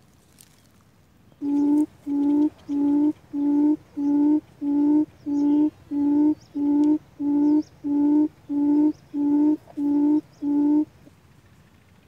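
Recorded coucal call played from a loudspeaker as a trap lure: a run of about fifteen deep, evenly spaced hoots, roughly three every two seconds, lasting about nine seconds.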